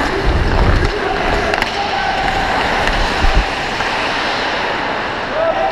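Ice hockey skates scraping and gliding on rink ice, a steady rush of noise with a couple of sharp knocks about a second and a half and three seconds in.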